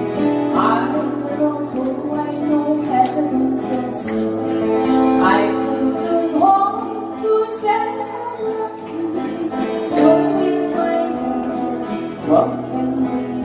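Live acoustic guitar group: several acoustic guitars strummed and picked together, with a voice singing the melody over them.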